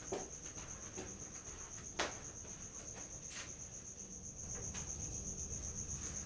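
Crickets chirping in a steady, even, high-pitched pulse, with a faint click about two seconds in.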